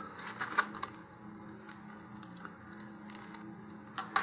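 Scattered light clicks and crinkles as a clear plastic parts bag holding fins, shock cord and parachute is picked up and handled, with a sharper click near the end.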